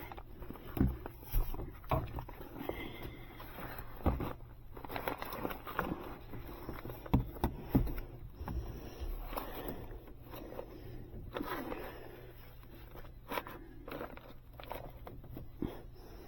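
Irregular knocks, thumps and scraping rustles of someone working in an attic, shifting loose insulation back into place and moving over the joists, with a few sharper knocks in the first half.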